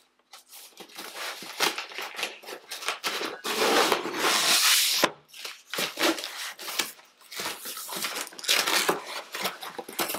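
Packing tape being torn off a cardboard box and the flaps pulled open, with rustling and scraping of cardboard. The loudest tear comes about three and a half seconds in and lasts over a second.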